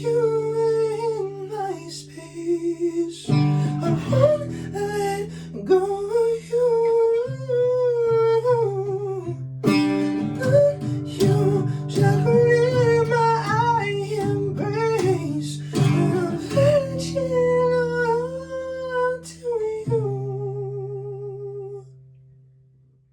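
Acoustic guitar strummed and plucked under a wordless sung melody with sliding vocal runs. It ends on a held, wavering note and chord that fade out near the end.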